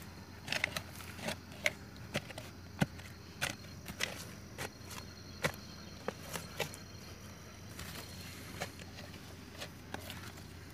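Irregular crackling and rustling of dry grass, stems and loose soil as freshly dug sweet potatoes are handled and laid on the ground, with a faint steady high insect drone behind.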